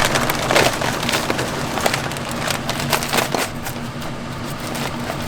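Sugar being poured from a cut-open bag into a pot: an irregular crackling, crinkling rustle of the bag and pouring granules over a steady low hum.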